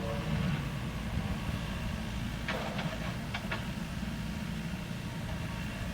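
Excavator diesel engine running with a steady low rumble, and four short sharp knocks in quick succession about halfway through.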